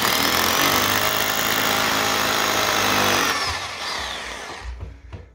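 SDS hammer drill with a 10 mm bit hammer-drilling into a wall, a loud steady racket that stops about three seconds in and winds down.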